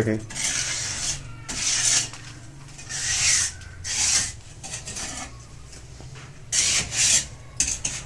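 Wet stone-chip concrete being scraped and pressed into a cut-out in a brick wall with a mason's trowel. There are several short scraping strokes with a pause in the middle.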